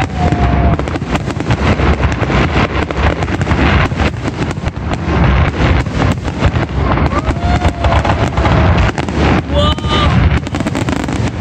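Aerial fireworks shells bursting and crackling in a rapid, unbroken barrage, many bangs overlapping with no pause between them.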